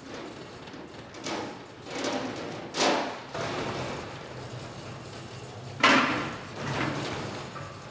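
Five knocks or bangs, each ringing out briefly, over a low steady hum; the loudest comes near the end.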